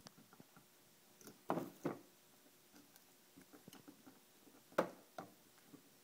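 African grey parrot biting and chewing at a silicone spatula with its beak: faint scattered clicks and small crunches, with a pair of sharper snaps about a second and a half in and another pair near five seconds.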